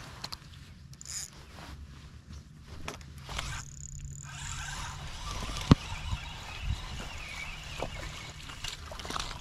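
A cast and retrieve with a fishing rod and reel. A whoosh of the cast comes a few seconds in, then a sharp click, then the steady whir of the reel winding line back in. A low steady hum runs under the first half.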